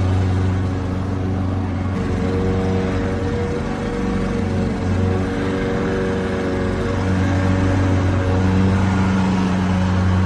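Lawn mower engine running steadily at a constant speed: an even, deep drone whose tone shifts slightly now and then.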